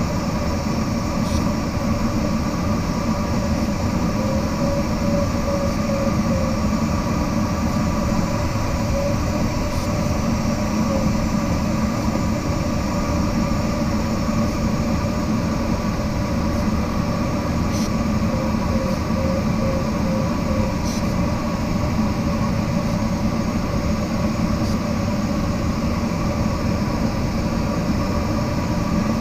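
Steady rushing airflow noise in a glider cockpit at cruising speed, with a faint, even hum running under it.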